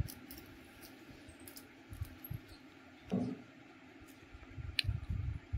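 Faint handling sounds of crocheting with wool yarn and a hook: a few soft low bumps and light clicks, with one sharper click near the end.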